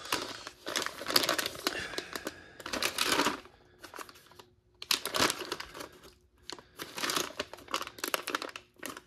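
Plastic ration-pack wrapping crinkling as it is handled and pulled open, in several bursts of crackling with short pauses between.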